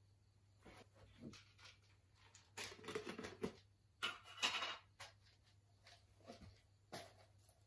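Soft rustling and handling noises as a book is laid down on a cushion and something is picked up by hand. The loudest rustles come about three and about four and a half seconds in.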